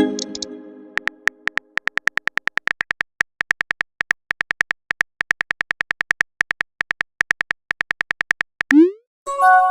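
Texting-app sound effects: a short pitched chime at the start, then a long run of rapid keyboard tap clicks, several a second, as a message is typed. Near the end comes a quick rising swoop and another chime as the message is sent.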